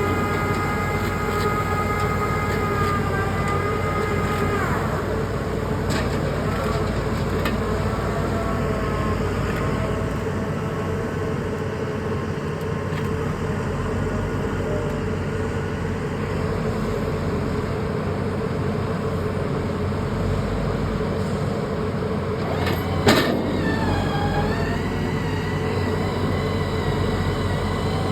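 Excavator's diesel engine and hydraulics running steadily under load, with a whine whose pitch steps down a few seconds in and shifts again near the end. A single sharp knock sounds near the end.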